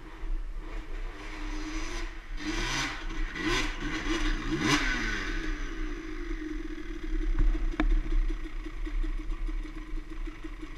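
Dirt bike engine idling, blipped up in three quick revs a few seconds in, then settling back to a steady idle. A single sharp click comes near the end.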